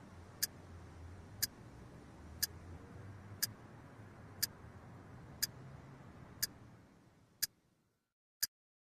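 Alarm clock ticking steadily, one tick a second, over a faint low hum that fades away near the end.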